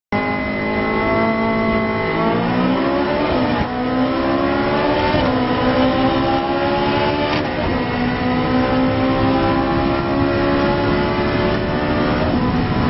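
In-car sound of a Ferrari 458 Challenge's V8 race engine under full acceleration. Its pitch climbs and drops at four quick upshifts in the first eight seconds, then climbs slowly in top gear as the car passes 200 km/h.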